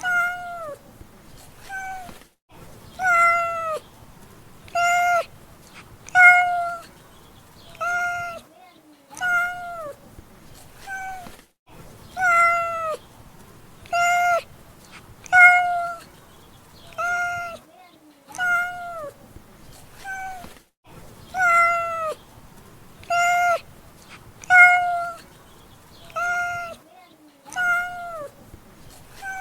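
Domestic cat meowing over and over, about twenty meows spaced roughly a second or so apart, each holding its pitch and then dropping at the end.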